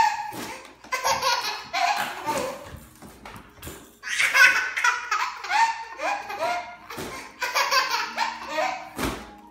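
Infant belly laughter: bouts of short, high-pitched 'ha' pulses, each falling in pitch, with a brief lull about three seconds in.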